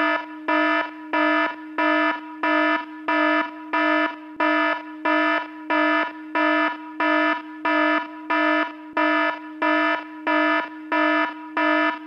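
Electronic emergency-alert attention tone: a harsh, buzzy alarm tone at one fixed pitch, pulsing about twice a second without fully dropping out between pulses.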